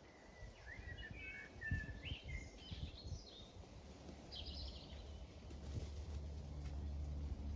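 Wild birds chirping and singing in short, quick phrases through the first half, over an uneven low rumble that settles into a steady low hum near the end.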